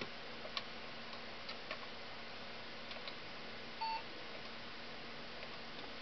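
Desktop computer running with a steady fan hiss and faint hum, a few faint clicks, and one short beep a little before four seconds in.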